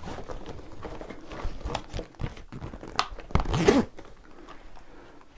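Rustling, crinkling handling noise with scattered small clicks from the handheld phone and clothing, with a short louder rustle about three and a half seconds in, then quieter.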